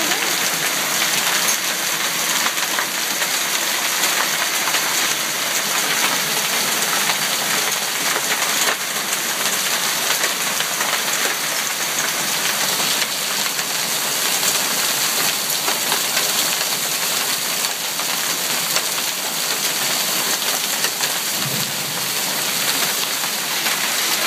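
Hailstorm: hail and rain pelting the lawn, pavement and dead leaves, a steady, dense hiss of countless small impacts.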